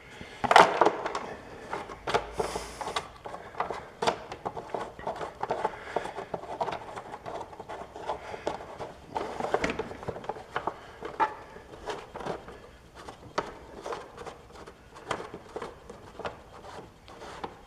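Irregular clicks, knocks and rubbing of hands handling mower parts and tools, with no engine running.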